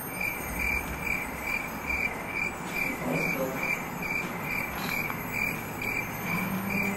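A cricket chirping steadily, a short high chirp about twice a second.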